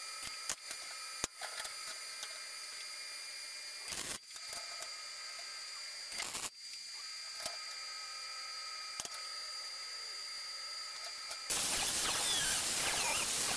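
Two short crackling welding-arc bursts, tack welds on the first horseshoe hook, about four and six seconds in, with small clicks between them over a faint hiss. The welder's amperage and voltage knobs were set the wrong way round. Near the end an angle grinder starts and runs loud, grinding the steel.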